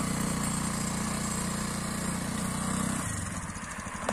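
Quad bike engine running steadily at low speed while towing a loaded trailer, dropping to a lower, uneven idle about three seconds in.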